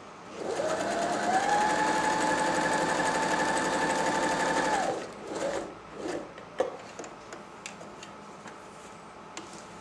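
Janome 525S electric sewing machine sewing a zigzag stitch: the motor whine rises in pitch as it speeds up over the first second, runs steady with the fast rattle of the needle, and stops about five seconds in. A few light clicks follow.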